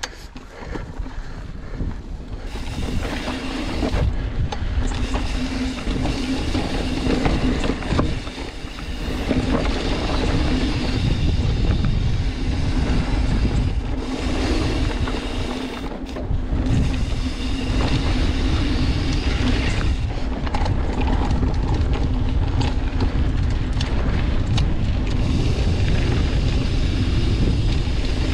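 Wind buffeting the microphone and tyres rumbling over a dirt trail while riding a mountain bike, with frequent knocks and rattles and a steady hum underneath.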